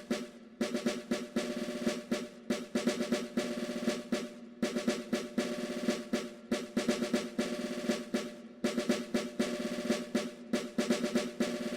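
Background music: fast, rolling snare-drum percussion over a steady held chord.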